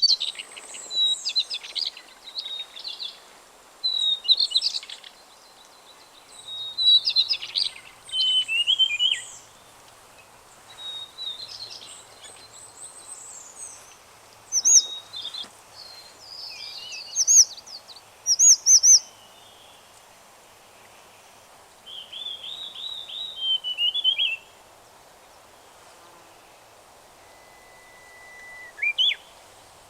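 Wild songbirds singing and calling in a series of short, high, fast-sweeping phrases with pauses between them. The highest notes cluster around the middle, and near the end one thin steady note is held for about a second before turning into a quick phrase.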